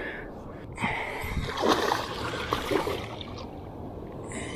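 Water splashing and sloshing as a hooked shark thrashes at the surface beside a small boat, in several irregular surges, loudest around the middle.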